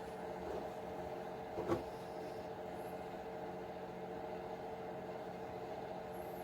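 Steady machine hum with several even pitched tones, and a single sharp click a little under two seconds in.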